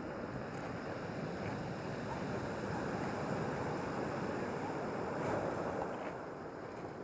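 Ocean surf breaking and washing up a pebble beach. The wash swells to its loudest in the middle and eases off near the end.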